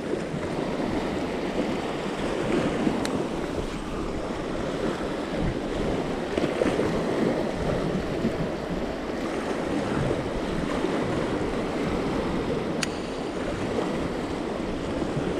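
Sea surf washing steadily over a shallow reef, an even rushing wash that swells and eases a little, with two faint clicks.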